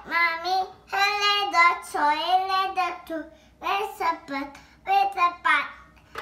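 A toddler singing in a high voice, four or five short phrases with brief pauses between them.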